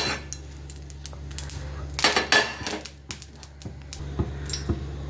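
Kitchen dishes and utensils clattering: scattered sharp clicks and taps, with a louder scraping, rustling burst about two seconds in, over a steady low hum.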